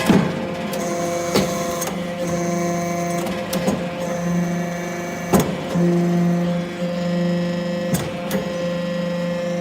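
Hydraulic metal-chip briquetting press running: a steady machine hum with several pitched tones, broken by about five sharp clanks a second or two apart.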